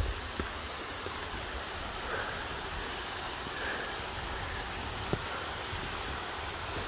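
Steady rushing of a small rocky mountain stream cascading over boulders, with a low wind rumble on the microphone and a few footsteps on loose stone.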